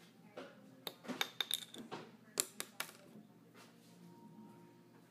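Paintbrush clattering against a small glass bottle and the hard surface under it: a quick run of sharp knocks and clinks, a few ringing briefly, between about one and three seconds in.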